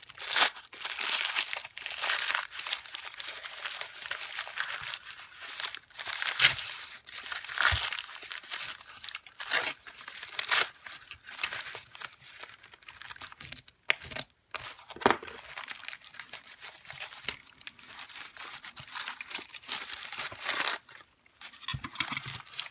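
Packing material crinkling, crumpling and tearing as locks are unwrapped from a parcel by hand, with a few sharper crackles and clicks along the way.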